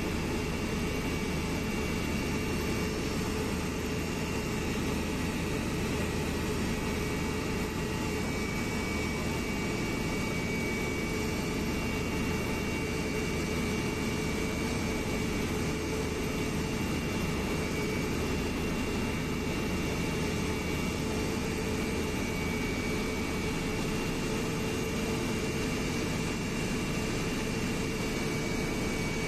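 Steady in-flight cabin noise of a passenger aircraft: engine drone and rushing air with a few faint steady whining tones, unchanging throughout.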